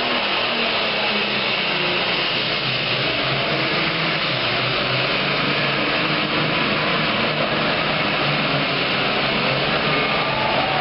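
Super Farm class pulling tractor's turbocharged diesel engine running flat out under load down the track, a steady loud noise with no change in pitch.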